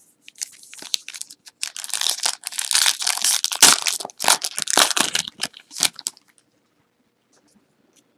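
A basketball trading-card pack being torn open, its wrapper crinkling and tearing. The crinkling starts about half a second in, is loudest in the middle and stops about six seconds in.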